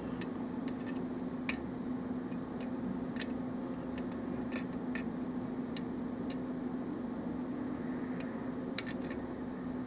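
Lock pick working the pins inside a Russwin euro-cylinder pin-tumbler lock during single-pin picking: faint, irregular metallic ticks and clicks, a little louder once about a second and a half in and again near the end, over a steady low hum.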